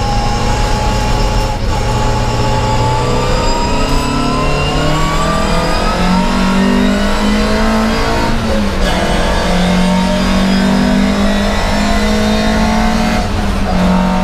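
Volvo 544 race car's inline four-cylinder engine heard from inside the cabin, pulling hard with the revs climbing. The pull breaks briefly about a second and a half in and again near nine seconds, then climbs again.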